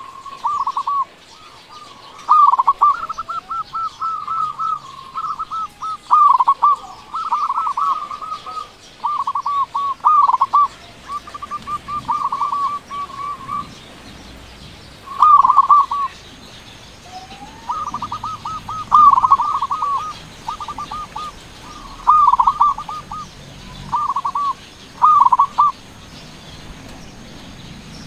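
Zebra dove (perkutut, local strain) cooing in a big voice: about a dozen phrases of fast, staccato coo notes, each a second or two long, with short pauses between them.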